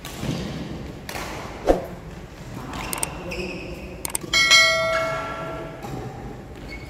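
A bell 'ding' sound effect, the notification bell of a subscribe-button animation, ringing for about a second and a half from about four seconds in. Earlier, about a second and a half in, a single sharp thud.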